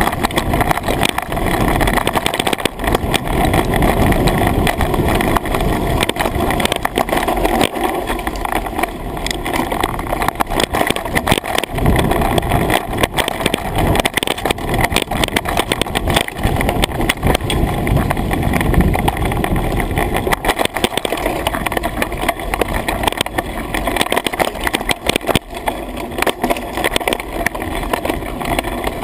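Mountain bike riding fast down a dirt trail: wind rushing over the action camera's microphone, tyres rolling on the dirt, and constant rattles and knocks from the bike over rough ground.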